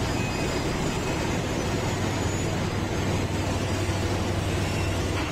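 Rail track-laying machine at work: a steady engine drone with continuous machinery noise as it lays rails onto concrete sleepers.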